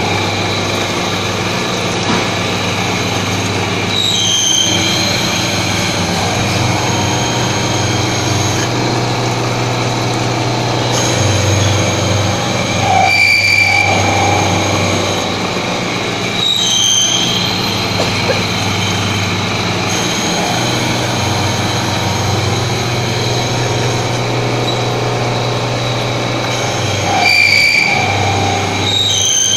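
UH-5052-MV005 CNC milling machine's 3.7 kW spindle driving a large face-milling cutter through steel under coolant spray: a steady, loud machining whine with many tones over a low hum that comes and goes. Brief high squeals break through about four times as the cutter runs onto the workpiece.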